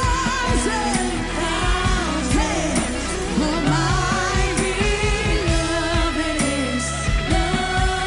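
Live worship music: a voice sings a long, wavering, drawn-out melody over a band with steady drum hits and a sustained low bass.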